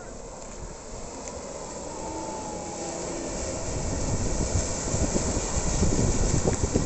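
A jeep's engine drawing near, growing steadily louder over several seconds, then dropping away suddenly near the end.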